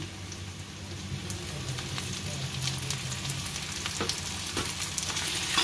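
Hot oil sizzling as ground chili paste fries with garlic, ginger and shallots in a pan, with a few light clicks of a metal spoon against the pan and a low steady hum underneath.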